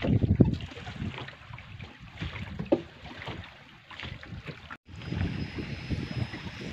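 Wind buffeting the microphone over open water: a gusty, uneven low rumble, with a brief cut-out about five seconds in.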